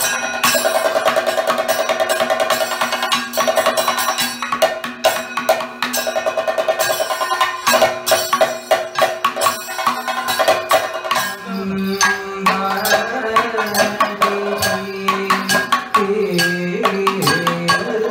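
Kathakali drumming on chenda and maddalam, fast and dense strokes. About eleven seconds in, the vocalists begin singing over the drums.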